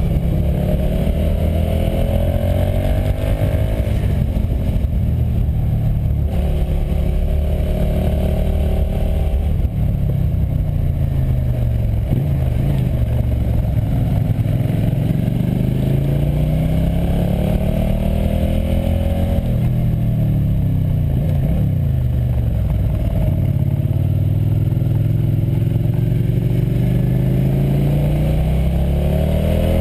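Motorcycle engine heard from on board, its revs rising and falling again and again as it accelerates and slows through a run of bends.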